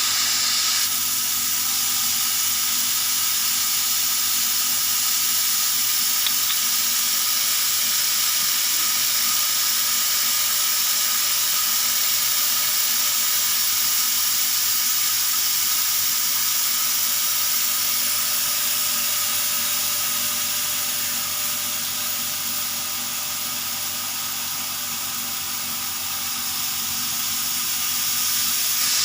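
CNC laser cutting machine running while cutting 3 mm melamine plywood: a steady hiss of air with faint steady hums under it, easing slightly for a few seconds late on.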